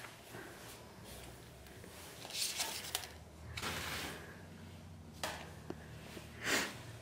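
Faint handling noises: a few short rustles and scrapes as papers and a photograph are picked up off a debris-strewn floor, the loudest near the end, over a low steady hum.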